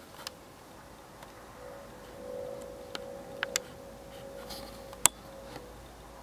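A few sharp clicks and knocks from the camera and tripod being handled, the loudest about five seconds in, picked up by the camera's built-in mic over a faint steady hum.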